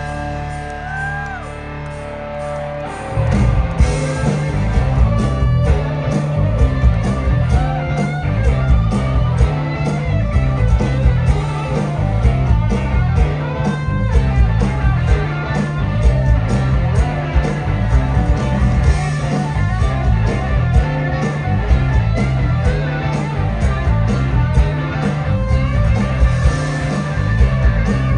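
Live blues-rock band: electric guitars with bending lead notes over bass and drums. A chord rings out for the first few seconds, then the full band comes in about three seconds in with a steady beat.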